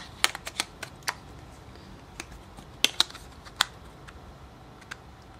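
Scattered small plastic clicks and taps as a battery is pressed into a Samsung Highlight T749 phone and its plastic back cover is snapped into place: about ten irregular clicks, the loudest a little before the three-second mark.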